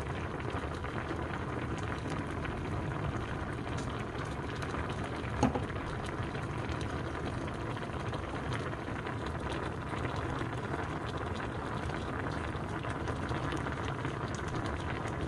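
Mackerel and radish braising sauce bubbling hard in a stainless steel pan: a steady sputtering simmer full of small bubble pops. A single short clink about five and a half seconds in.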